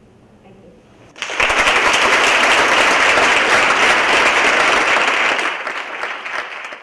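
Audience applauding, starting suddenly about a second in, holding steady and loud, then thinning out near the end.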